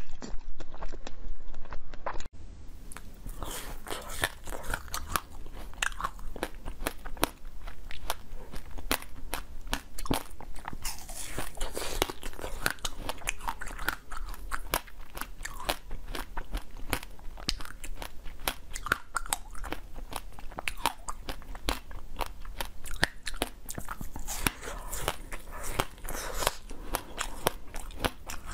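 Close-miked crunching and chewing of frozen basil-seed ice: a dense, continuous run of sharp crackling bites. The first two seconds are a louder stretch of biting that cuts off abruptly.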